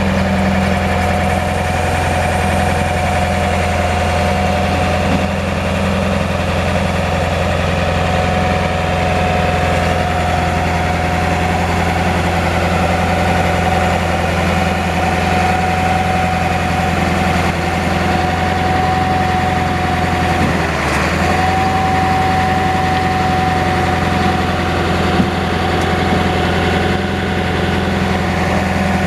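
Ford F450's 7.3-litre V8 diesel engine idling steadily, with a thin steady whine over the low running note. The whine and the low note break briefly about two-thirds of the way through.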